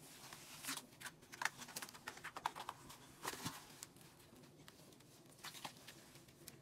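Faint scratching and rustling on cardboard as a dog in labour shifts restlessly inside a cardboard box. A quick run of scrapes and taps comes in the first few seconds, then a couple more near the end.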